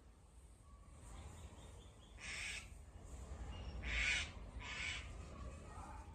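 A bird calling outdoors: three short calls, the last two close together, over a faint low background rumble.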